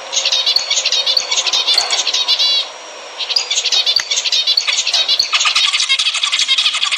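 Zebra finches singing and calling in a fast, dense stream of short chirping notes, with a brief break a little under three seconds in.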